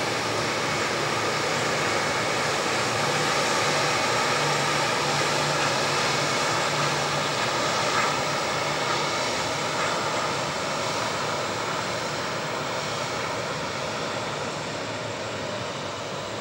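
Airbus A340-300's four CFM56 jet engines running at low thrust as the airliner taxis past: a steady jet rush with a faint whine over a low hum, fading slowly over the last few seconds as it moves away.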